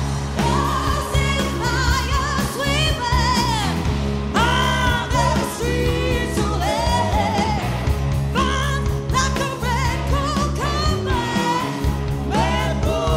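Live rock band with electric guitars and drums backing a woman singing loud held notes with wide vibrato.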